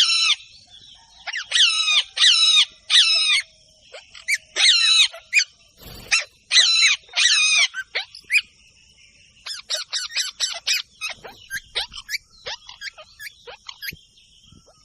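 Parrots squawking: loud, harsh calls repeated in quick groups, giving way in the second half to faster, shorter chirps. A single knock comes about six seconds in.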